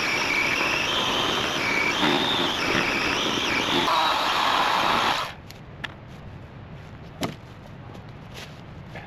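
Battery electric chainsaw cutting through a fallen hardwood log, its high motor whine wavering in pitch under load, then cutting off suddenly about five seconds in. A few light knocks follow.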